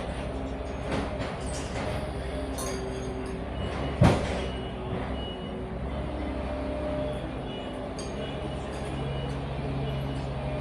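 Digger engine running steadily with a low, even rumble, and one heavy thud about four seconds in.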